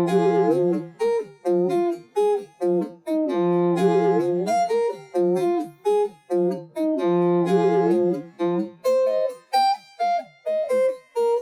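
Instrumental music: a melody of short, separated pitched notes, with no drums or bass.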